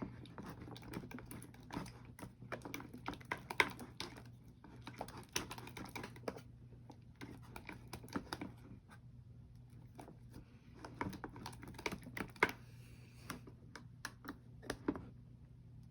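Slime being stirred in a container: irregular, uneven clicks and taps of the mixing utensil against the container as the glue and activator are worked together.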